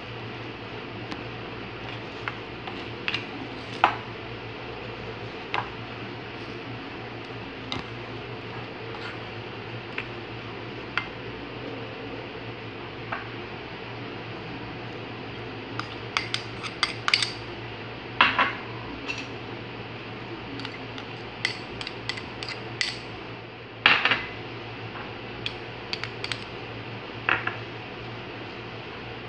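Hand mixing a coarse ground-chickpea falafel mixture in a bowl: scattered light knocks and clicks against the bowl, more frequent in the second half, over a steady low hum.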